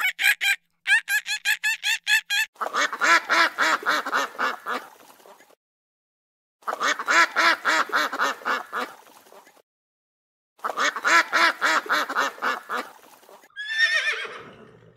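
A bird, most like domestic farm fowl, calling in quick runs of rapid calls. The same run sounds three times with short gaps between. A different, falling call starts near the end.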